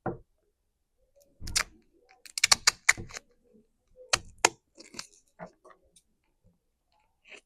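Duct tape being pulled off the roll: a run of sharp, irregular crackling clicks in several short bursts.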